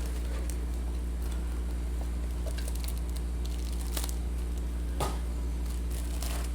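Trading-card boxes and pack wrappers being torn open and crinkled by hand, heard as scattered crackles and clicks over a steady low hum.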